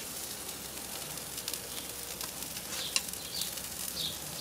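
Butter sauce sizzling on corn cobs over a charcoal grill: a steady hiss with scattered crackles and pops as the butter drips onto the hot coals.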